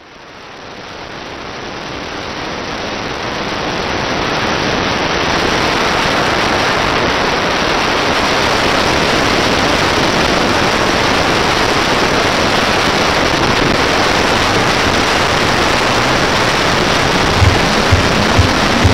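Steady rushing hiss like heavy rain, fading in over about the first five seconds and then holding level. Near the end, a low thumping beat of music comes in, about two beats a second.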